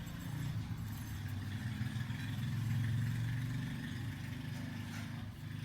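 Low engine hum, like a motor vehicle, that swells to its loudest about three seconds in and then fades a little.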